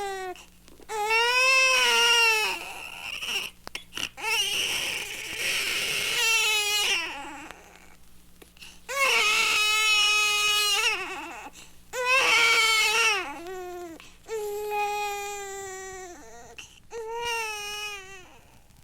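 A baby crying: a run of drawn-out wails, each a second or two long, rising and then falling in pitch, with a harsher, raspier wail about five seconds in.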